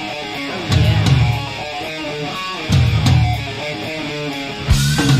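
Live heavy metal band playing: electric guitar lines over bass and drums, with heavy low chords hitting about every two seconds.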